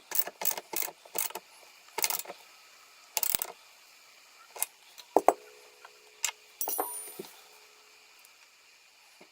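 Ratchet wrench clicking in an even rhythm, about four clicks a second, as the nylock nut on the e-bike swing arm bolt is tightened; it stops about a second and a half in. A few separate metal clinks and knocks follow, one of them ringing briefly a little after five seconds.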